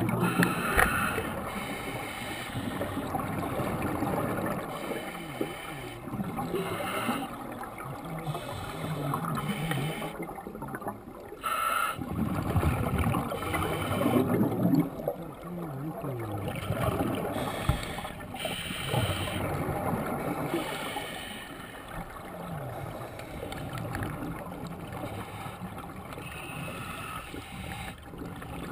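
Scuba diver breathing through a regulator underwater, with exhaled bubbles gurgling in bursts every few seconds. The loudest burst comes about halfway through.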